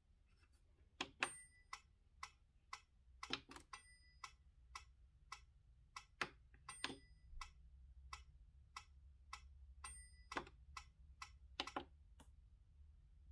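Yamaha P-105 digital piano's built-in metronome ticking about twice a second, with a brighter, ringing click every few beats marking the start of the bar, while its tempo is stepped with the panel buttons.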